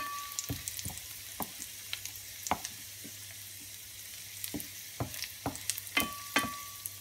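Garlic cloves sizzling in olive oil in a stainless steel frying pan, stirred with a wooden spatula that knocks and scrapes against the pan. A couple of harder knocks near the end set the pan ringing briefly.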